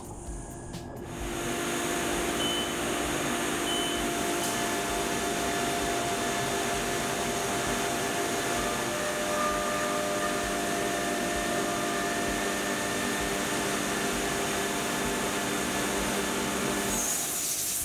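CNC mill (Haas VF2SS) spindle at 12,000 rpm roughing a metal wheel disc with a 3-flute end mill under flood coolant: a steady cutting whine over the hiss of coolant spray. It starts about a second in and cuts off suddenly near the end.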